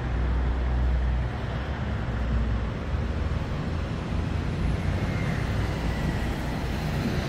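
Steady city street noise: a low rumble under a broad, even hiss, with no distinct events.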